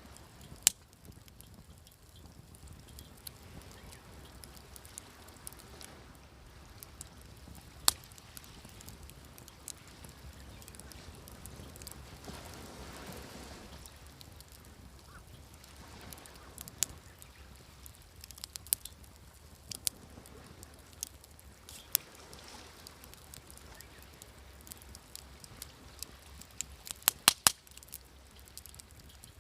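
Wood campfire crackling, with scattered sharp pops and snaps and a quick cluster of several pops near the end, over a soft steady wash of waves that swells briefly in the middle.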